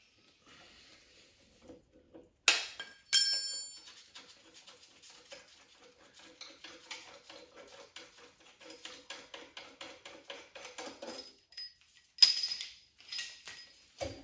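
Metal hand tools clinking with a bright ringing, twice near the start and again near the end, with a long run of fast small clicks in between.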